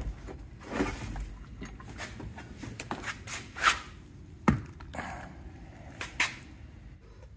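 A heavy 8-volt lead-acid golf cart battery handled on a lifting strap: scattered clunks and scrapes as it is hooked, lifted out of the tray and carried, with a sharp thunk about four and a half seconds in as it is set down on concrete.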